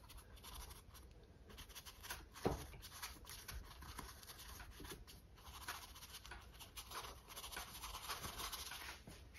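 Small paintbrush dabbing and scrubbing acrylic paint onto a stretched canvas: faint, quick scratchy strokes, with one slightly sharper tap about two and a half seconds in.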